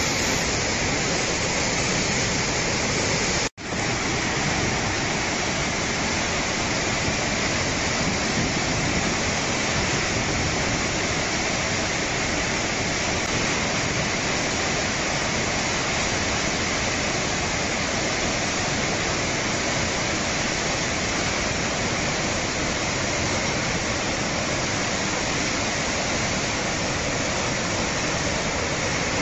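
Steady rushing of a swollen, muddy flood river churning in turbulent standing waves, broken once by a brief drop-out about three and a half seconds in.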